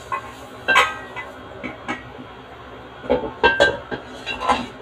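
Metal wok clanking on a gas stove's grate and being worked with a spatula: a series of sharp, irregular metallic knocks and clinks with a short ring after each.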